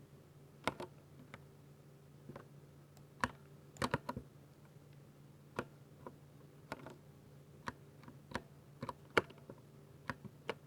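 Keys of a 60% mechanical keyboard with linear speed silver switches being pressed one at a time at an unhurried, uneven pace, each a sharp click, with a quick run of several keys about four seconds in. A faint steady hum lies underneath.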